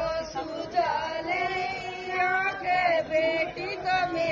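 A group of women singing a vidayi geet, the folk song sung at a bride's farewell, their voices together in short repeated phrases.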